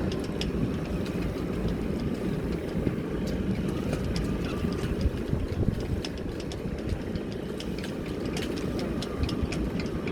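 Strong wind rumbling over the microphone, with a boat's engine running under it during docking, and scattered light clicks.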